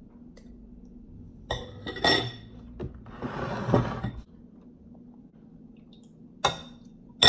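A metal spoon clinking against a ceramic cereal bowl several times, each strike ringing briefly. The clinks come in pairs, about a second and a half in and again near the end. Between them, a little past the middle, there is a longer, noisier sound lasting about a second.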